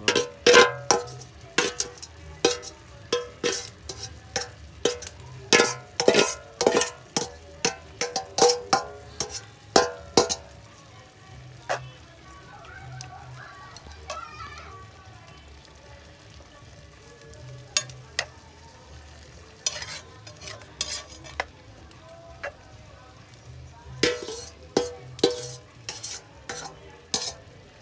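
A spoon knocking and scraping against a pot as a coconut-milk rundown is stirred. There are quick knocks at about two a second, a lull of several seconds in the middle, then more knocks near the end.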